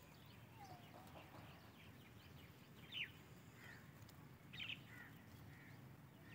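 Faint birds chirping over a low steady background: a few short high calls, the clearest about three seconds in and two more about a second and a half later.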